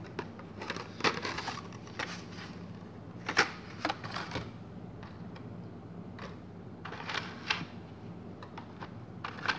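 Carded Hot Wheels die-cast cars in plastic blister packs being handled and set down: irregular clicks, taps and short plastic rustles, with a faint steady hum underneath.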